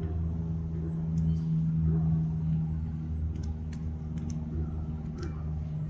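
Steady low hum of an idling engine, with a few faint clicks over it.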